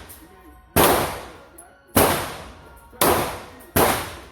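Four loud gunshots at roughly one-second intervals, each a sharp crack that fades out quickly.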